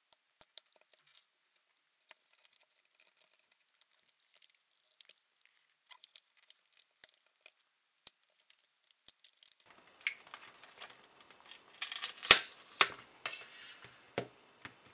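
Double-sided tape and plastic tearing as lithium 18650 cells are peeled off a laptop battery pack's plastic bottom plate: faint scattered crackles and ticks, then from about ten seconds in a louder stretch of tearing and crackling with a few sharp snaps.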